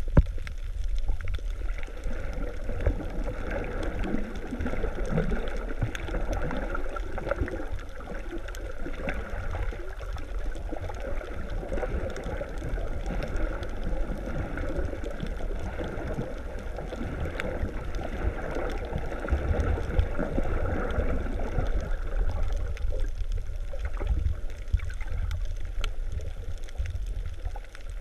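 Water gurgling and sloshing around a GoPro Hero 3 Black held underwater in its waterproof housing, over a steady low rumble. The gurgling eases off near the end.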